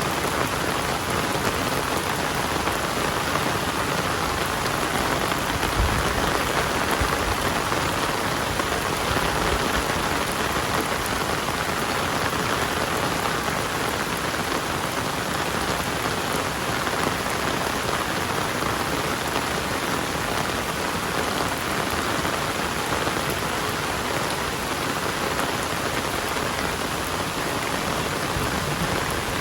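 Heavy rain falling steadily, an even hiss of drops on surfaces. A brief low thump sounds about six seconds in.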